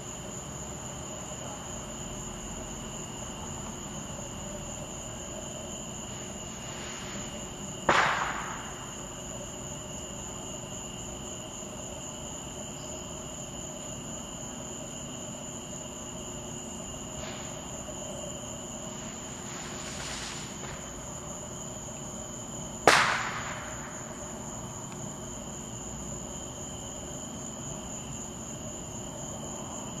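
Two loud fireworks bangs, about fifteen seconds apart, each fading out over about a second. They sound over a steady night insect chorus with a constant high whine.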